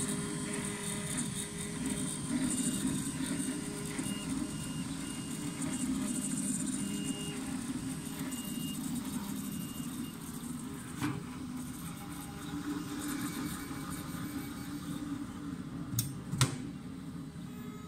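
MINGDA MD-4C 3D printer printing: a steady whir of its cooling fans, with the stepper motors sounding short high tones that start and stop as the print head moves. Near the end come two sharp knocks as the enclosure's handle is worked, the second the loudest.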